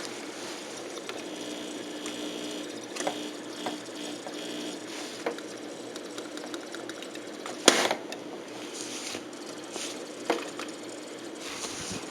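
A low steady mechanical hum with a few scattered clicks and knocks, the loudest knock about three-quarters of the way through.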